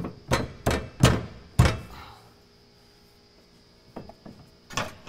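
Hollow thunks of a fuel-tank support strap being shoved up against the truck's frame to snap it into the frame tab: four sharp knocks in the first two seconds, then a pause, a few light clicks and one more knock near the end.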